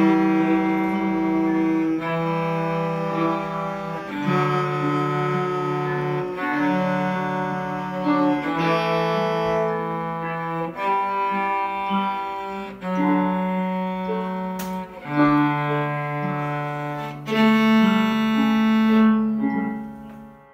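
Cellos playing a short round in long bowed notes over piano accompaniment; the last note fades away near the end.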